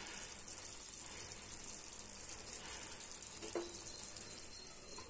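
Chicken gravy simmering in an open pan on the stove: a steady, soft sizzling hiss.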